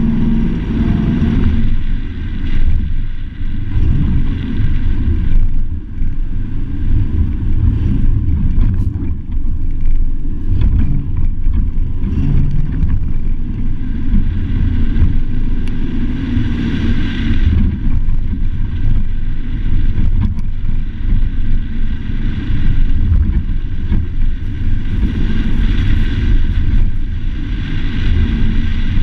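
Pickup truck driving along a sandy dirt track: steady engine and tyre noise over a heavy low rumble, the engine note coming up louder for a few seconds about two-thirds through and again near the end.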